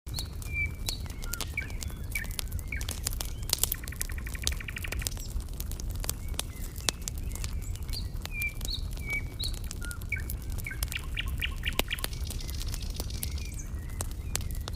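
Small birds chirping with short, high whistled notes, a rapid trill about four seconds in and a buzzy call near the end, over a steady low rumble.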